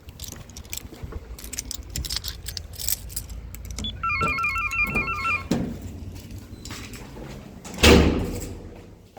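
A short electronic beeping melody, stepping between two notes for about a second and a half, then a single loud bang of a heavy door shutting that rings out for about a second.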